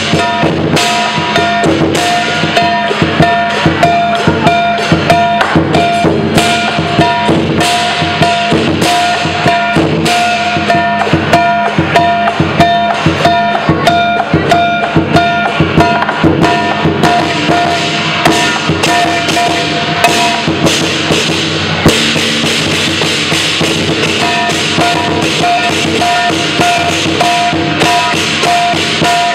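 Lion dance percussion: a large drum beaten in fast, dense strokes with cymbals and gong ringing over it, loud and continuous, the pattern shifting a little past two-thirds of the way through.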